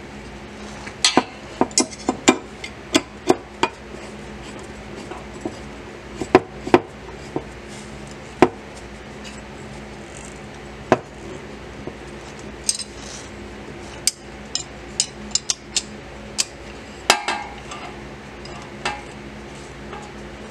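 Irregular sharp metallic clicks and clinks of a hand tool on the bolts of a driveshaft center support carrier as they are tightened, some coming in quick runs of several clicks.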